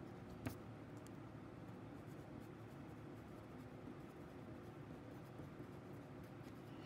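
A pencil writing on paper: faint, scratchy strokes, with one sharp click about half a second in.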